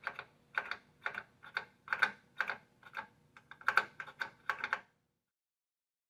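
Front pushbuttons of a Potter PFC-4410 fire alarm control panel clicking under quick repeated presses, about four clicks a second in uneven runs, as the programming menu is stepped through. The clicks stop suddenly about five seconds in.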